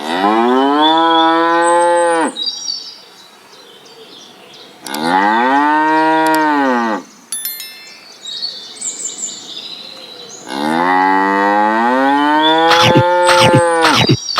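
A cow mooing three times, each a long call that rises and falls in pitch, with birds chirping faintly between the calls. Near the end a quick series of sharp knocks starts over the last moo.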